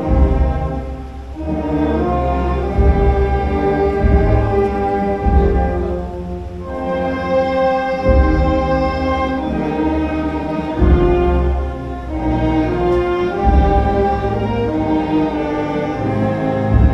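Orchestral background music: slow, sustained chords that shift every second or two over a heavy low bass.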